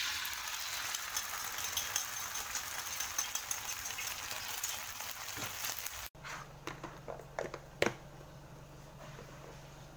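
Food frying in hot oil, an even sizzle with fine crackling for about six seconds, then cut off abruptly to a low steady hum with a few light clicks and knocks.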